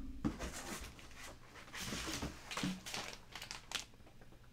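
Plastic comic-book grading slabs and their clear sleeves being handled: soft rustling with a few light clicks and taps.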